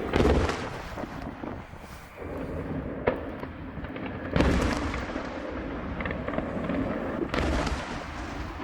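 Aerial fireworks bursting over a harbour: a series of loud booms and sharp cracks, with a rolling low rumble between them. The strongest bursts come at the very start, about 3 s in (a sharp crack), about 4.5 s in and about 7.5 s in.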